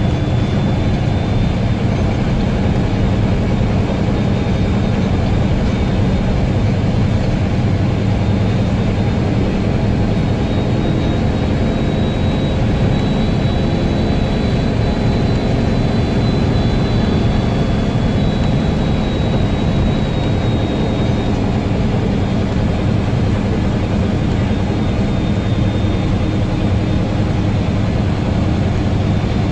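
Guy Arab III bus's diesel engine running steadily with a deep drone, a thin high whistle riding over it that grows strongest in the middle stretch.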